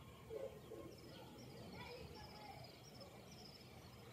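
Faint birds chirping, a run of short high chirps starting about a second in, over quiet outdoor background noise.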